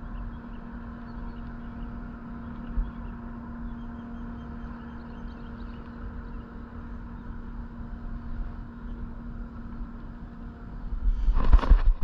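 Electric trolling motor running with a steady hum. A burst of loud knocks and rustling comes near the end.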